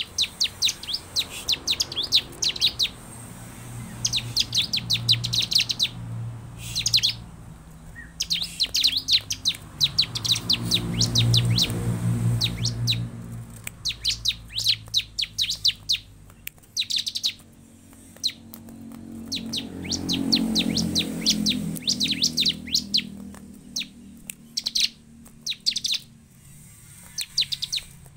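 Bar-winged prinia (ciblek) singing in repeated bouts of rapid, high trilling notes, each bout a second or two long with short pauses between. A low rumble swells in the background about ten seconds in and again about twenty seconds in.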